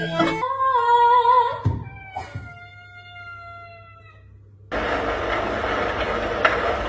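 A cat meowing twice: a short wavering meow, then a long one that slowly falls in pitch. About two thirds of the way in, it cuts suddenly to a steady rushing noise.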